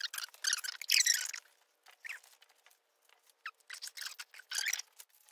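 Crinkling and rustling as a Christmas bow and greenery are handled and fastened on, in short irregular bursts, loudest about a second in.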